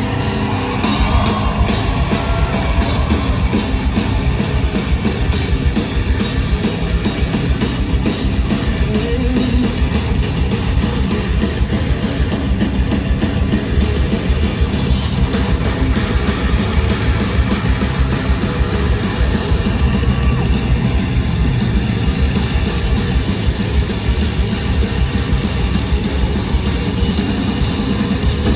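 Hard rock band playing live at full volume: distorted electric guitars over bass and a steadily pounding drum kit, in an instrumental stretch between sung lines.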